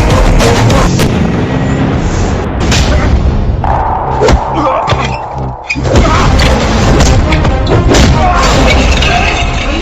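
Loud dramatic film score with heavy booming hits. It thins out briefly about five seconds in and comes back with a sudden hit.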